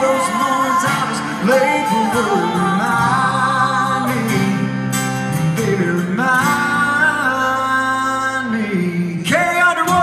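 A song sung over a band, with some long held notes, played over an arena's sound system.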